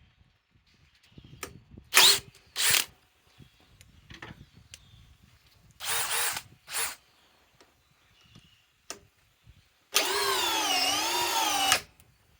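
DeWalt DCD805 cordless drill's motor spun up in short trigger blips, two then two more, then run for about two seconds with its whine wavering up and down in pitch as the trigger is feathered.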